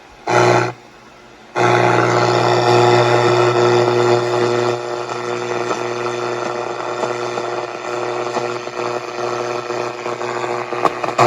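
Soundwave multiband radio's speaker giving out a brief burst of static, then, after a pause of about a second, steady static with a low hum under it, with no station tuned in.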